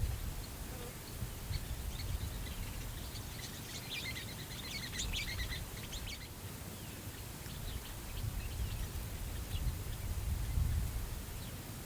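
Steady prairie wind rumbling and gusting, with birds chirping over it and a quick flurry of bird calls about four seconds in.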